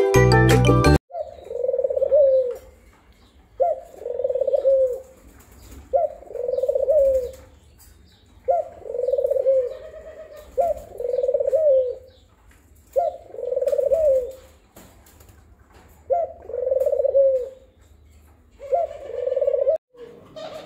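Diamond dove cooing: about eight low coos, roughly every two seconds, each arching in pitch and dipping at the end.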